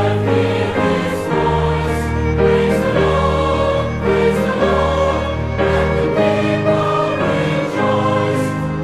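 A choir singing a slow Christian hymn in held chords, the harmony changing about every second.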